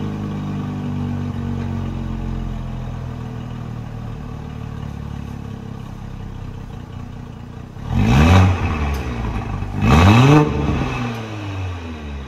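2019 Audi SQ5's 3.0-litre turbocharged V6 with a Redstar 200-cell HJS catalyst setup and the stock cat-back exhaust, idling steadily. About 8 seconds in and again about two seconds later it is blipped in two quick revs, each rising sharply and falling back to idle.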